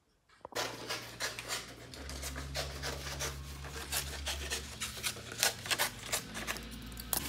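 Scissors snipping through printer paper to cut out a portrait line drawing for a tattoo stencil, with quick repeated snips and paper rustling as the sheet is turned. A steady low hum runs underneath.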